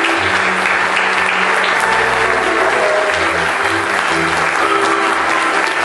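Audience clapping steadily and loudly for the cast's curtain call, with music playing underneath, its low notes changing every half second or so.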